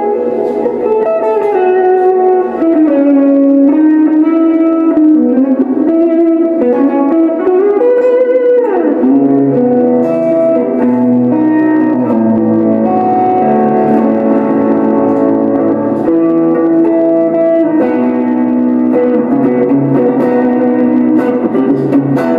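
Telecaster-style electric guitar played through a Boss ME-80 multi-effects unit with distortion and ambient reverb. A sustained lead melody of held notes slides quickly down in pitch about eight seconds in, then settles into lower held notes.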